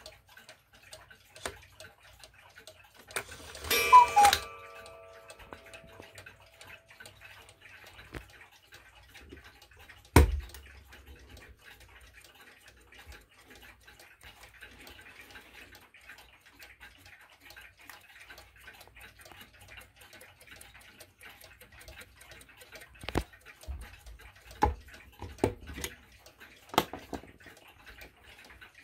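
Mechanical wall clocks ticking steadily. About four seconds in there is a brief loud burst with several held tones, and about ten seconds in a loud thump. A few sharp clicks come near the end.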